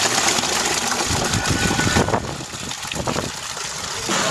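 Milk gushing from a bulk milk tank's outlet pipe into a plastic bucket, splashing and frothing as it fills. The rush turns quieter for a couple of seconds midway, then picks up again.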